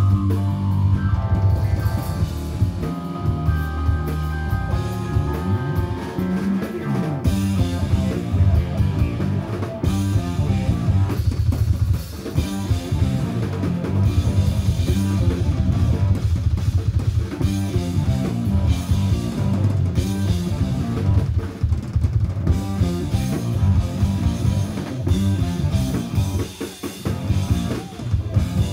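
Rock band playing live through amplifiers: drum kit prominent, with electric guitar and bass guitar, and a falling run of high notes near the start.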